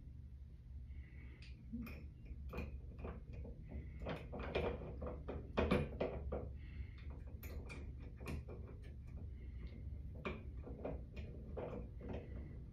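Small parts being fitted by hand into a shower valve body: irregular light clicks, taps and scrapes, busiest around the middle, over a steady low hum.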